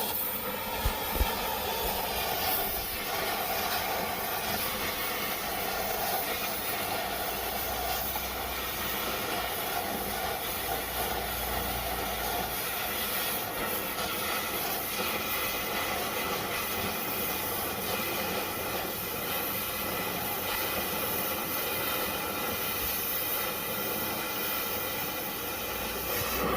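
Steady hiss of a cutting torch cutting metal out of a mower deck.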